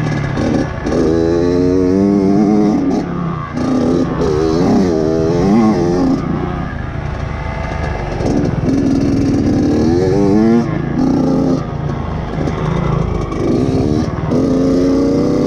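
Dirt bike engine revving hard under load, its pitch climbing several times and dropping back between as the throttle is worked, over rough wind and track noise.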